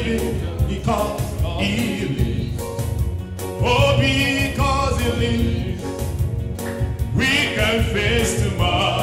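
Gospel song: a man sings solo into a handheld microphone, in phrases with pauses between lines, over instrumental accompaniment with a steady beat.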